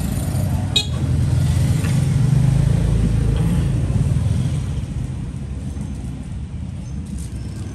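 Low rumble of road traffic passing by, swelling about two to three seconds in and then fading. A single sharp click about a second in.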